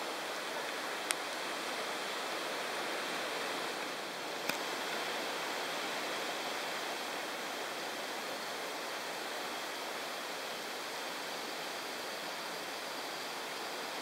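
Steady hissing outdoor background noise with a faint steady high tone running through it, broken by two brief sharp clicks, about one second and four and a half seconds in.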